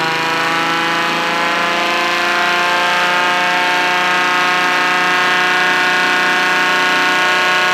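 Laser-cut wooden air-raid siren spun by a Dremel rotary tool, wailing as the Dremel's speed is turned up. Its pitch rises over the first two or three seconds, then holds steady and loud.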